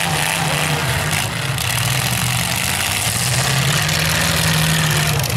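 Demolition derby cars' engines running together, their pitch rising and falling as the drivers rev, over a loud steady din.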